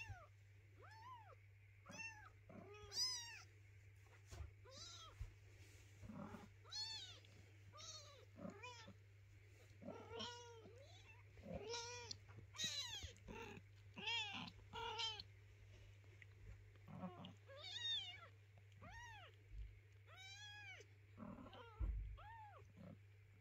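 A hungry kitten mewing over and over, short high rising-and-falling cries about once a second, while the litter nurses. Under the cries there is a faint steady low hum.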